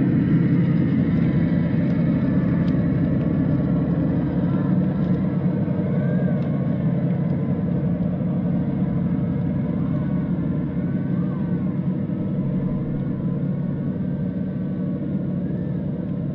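Radio-controlled scale crawler trucks, a Traxxas TRX-4 Bronco and a tow truck, driving with a steady electric motor and gear whine that slowly fades as they move away.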